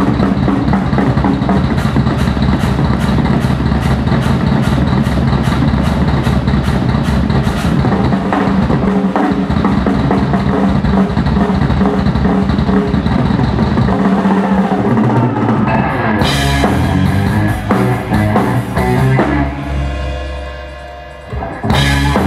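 Sakae drum kit with Paiste cymbals played live in a hard-hitting rock style, with fast kick and snare strokes under washing cymbals. In the last few seconds the playing thins out and sustained pitched tones come forward before the full kit comes back in.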